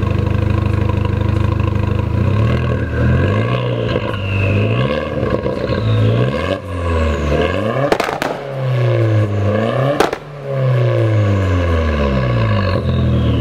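Volkswagen Golf GTI Mk4 engine free-revving, the revs climbing and dropping back over and over. Two sharp exhaust pops come about eight and ten seconds in.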